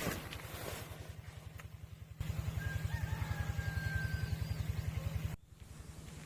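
An engine running steadily with a rapid low throb. Its level jumps abruptly twice, and a thin held whistle-like tone sounds over it in the middle.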